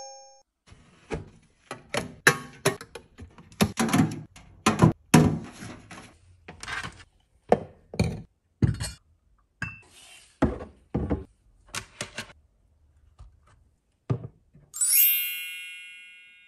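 Small household items being handled and set down on a tabletop and shelf: an irregular string of knocks, taps and light clinks. Near the end comes one bright ringing chime that slowly fades.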